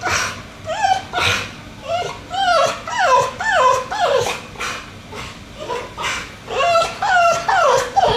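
Pit bull crying: a run of short, high whining yelps, each falling in pitch, about one or two a second with a brief lull in the middle. It is typical separation whining, a dog left behind by its owner.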